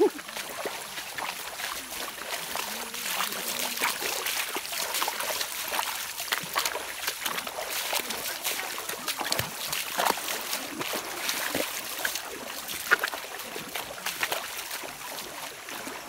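Shallow rocky stream trickling, with irregular splashes of feet wading through the water and one sharper splash a few seconds before the end.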